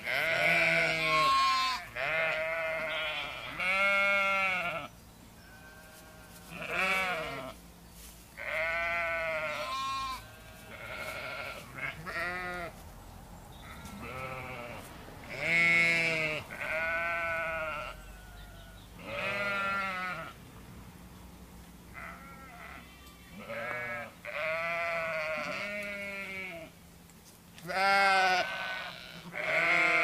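Several domestic sheep bleating again and again, one call after another with short gaps. Each bleat lasts about a second, its pitch wavering and rising then falling.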